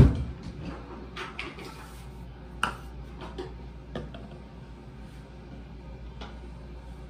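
A heavy thump as the camera is handled and set in place, then a few light clicks and knocks of plastic cups and containers being set down on a bathroom countertop.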